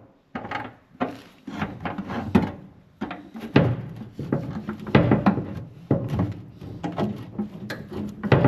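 Irregular clunks, knocks and clicks of hand tools being handled and worked against steel, as the tools are tried on a seized old seatbelt bolt with a rounded-off nut.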